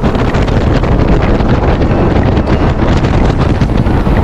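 Heavy wind buffeting on the action camera's microphone aboard a jet boat running fast on a river, with the boat's engine and rushing water underneath. Loud and steady throughout.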